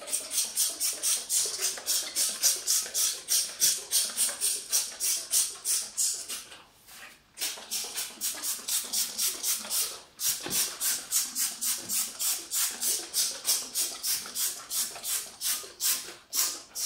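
Trigger spray bottle squirting foam cleaner onto enamelled baking trays: a fast, even run of short hisses, about four squirts a second, broken by two brief pauses.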